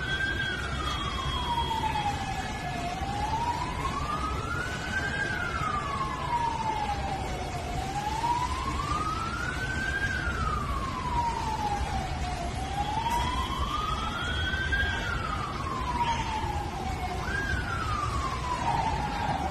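Emergency vehicle siren wailing, its pitch rising and falling slowly, about once every five seconds, over a steady low rumble. Near the end one fall is cut short and the siren jumps back to the top.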